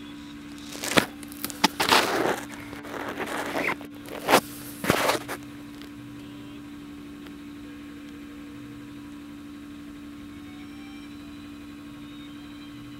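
Steady low hum of the Scania aerial ladder truck's engine running the ladder's hydraulics while the boom moves. From about one to five seconds in it is broken by a run of loud crackling noises.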